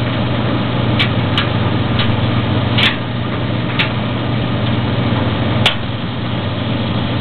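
Maytag DG608 gas dryer running with a steady low hum and a few irregular light ticks while its igniter heats up. A sharper click comes about five and a half seconds in, around when the gas valve opens and the burner lights.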